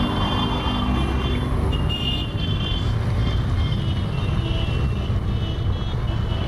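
A procession of motorcycles and trikes riding past at low speed, one after another, their engines giving a steady low rumble.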